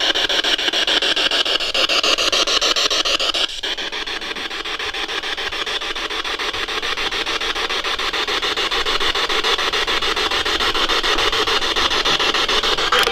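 SB7 spirit box sweeping through radio stations: a fast, even chopping rasp of static. Its tone shifts and it drops a little in level about three and a half seconds in.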